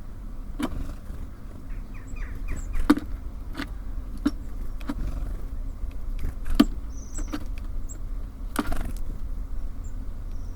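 Small birds knocking and pecking at a bird feeder: about eight sharp taps scattered through, one longer scrabbling knock near the end, with a few faint, short, high chirps. Under it runs a steady low rumble of city traffic.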